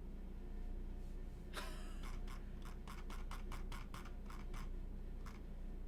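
A short scrape about one and a half seconds in, then a quick run of about a dozen light clicks at a fast, uneven pace, from someone working at a computer.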